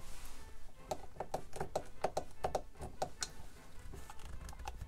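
Rapid plastic clicking, about a dozen clicks over two and a half seconds, from the push-button on a light-up Godzilla ornament being pressed over and over; the button is sticky and has not yet set the ornament off.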